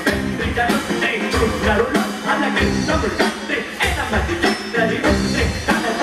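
Live band music: ghatam clay-pot drums struck in a fast, dense rhythm over electric bass and guitar.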